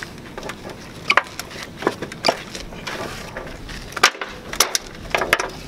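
Irregular metal knocks and clunks, about six of them, as an AC condenser's compressor is worked loose from its mounting feet on the unit's base pan. The loudest knock comes a little after the middle.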